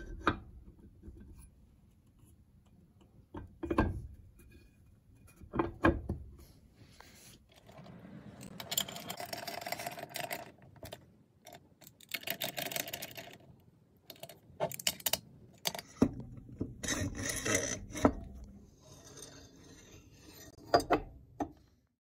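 Metal engine crankcase and parts being handled and fitted together on a wooden workbench: scattered sharp knocks and clunks, with longer stretches of scraping and rubbing in the middle and near the end.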